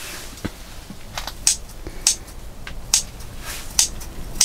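Scissors cutting food: a series of short, crisp snips, irregularly spaced about once or twice a second.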